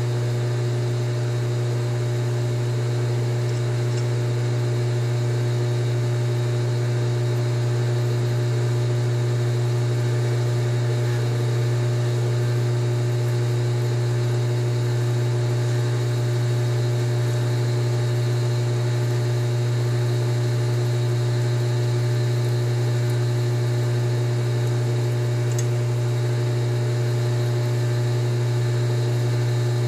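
Metal lathe running with a steady, constant hum while a chamber reamer cuts a .308 Winchester chamber in a steel rifle barrel.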